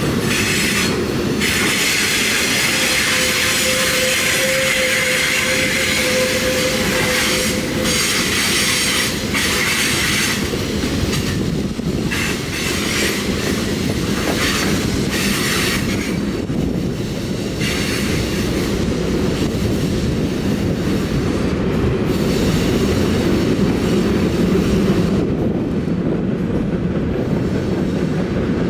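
Freight train cars rolling past: a steady rumble of steel wheels on rail, with a high-pitched wheel squeal over the first half that fades out after about sixteen seconds, and a single held squealing tone from about three to seven seconds in.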